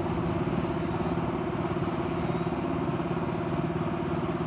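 An engine running steadily at idle, an even low drone that does not change.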